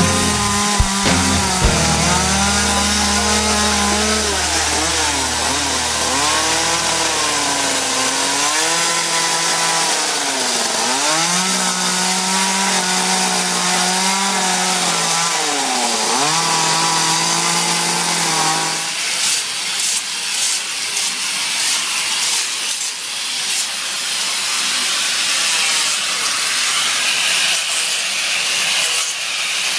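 A chainsaw running while carving, its engine pitch rising and falling as the throttle is worked. About two-thirds of the way through it gives way to an angle grinder with a disc rasping against the wood in short, uneven strokes.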